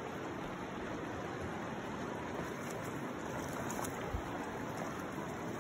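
Steady rush of a river's current over a shallow gravel riffle.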